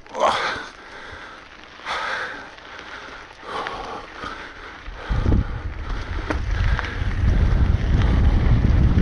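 Wind buffeting the microphone of a camera riding on a moving mountain bike, setting in loudly about halfway through and staying strong as the bike gathers speed. Before it, a few short hissing bursts come about every second and a half.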